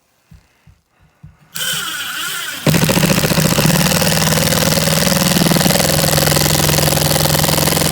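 Power drill/driver driving a screw through drywall into its backing support. After a few light clicks, the motor spins up about a second and a half in, then runs loud and steady under load for about five seconds and stops.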